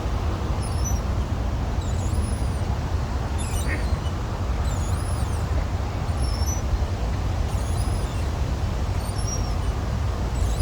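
Steady low rumble of wind in the forest, with small birds chirping now and then in short, high calls.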